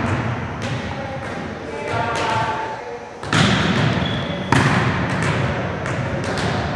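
Volleyballs being passed and set, a string of irregular thuds as balls strike players' arms and hands and bounce on the hardwood gym floor, echoing in the hall. A player's voice calls out briefly about two seconds in.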